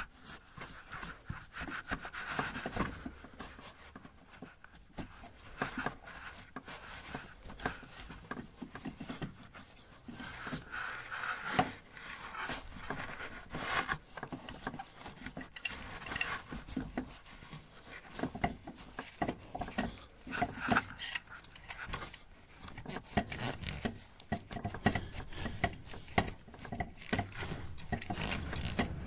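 Gloved hands handling engine intake parts: irregular rubbing and scraping with small clicks and knocks of plastic and metal.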